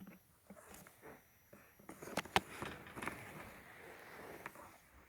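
Soft rustling with scattered sharp clicks and taps, busier from about two seconds in, with the loudest click about half a second later.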